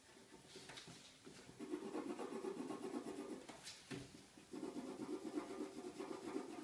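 Coloured pencil scribbling rapidly back and forth on paper, shading in a drawing. The strokes get louder about one and a half seconds in and pause briefly about four seconds in.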